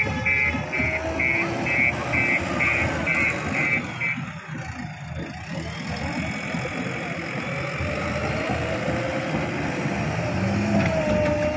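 JCB 3DX backhoe loader's diesel engine running under working load, its pitch rising and falling. A reversing alarm beeps about two and a half times a second over the first four seconds.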